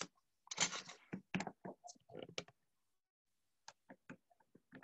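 Faint handling noise from photographs in plastic album sleeves: a run of soft rustles in the first half, then a few separate sharp clicks near the end.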